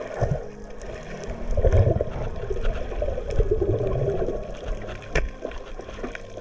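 Muffled underwater rushing and gurgling of water moving around the camera, swelling loudest in the middle, with one sharp click about five seconds in.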